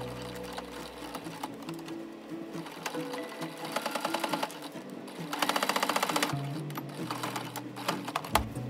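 Electric sewing machine stitching in short bursts: a rapid, even run of needle strokes around four seconds in, then a louder run from about five and a half to six seconds.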